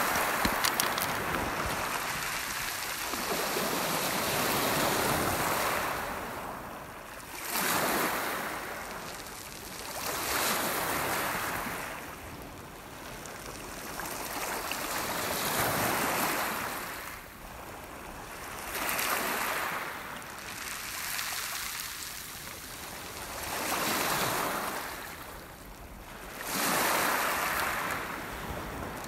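Lake Superior waves breaking on a pebble shore, the surf swelling and drawing back every few seconds.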